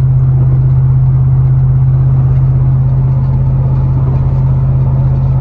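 Steady low drone of a vehicle cruising at highway speed, heard from inside the cab: engine and road noise with a strong, unchanging low hum.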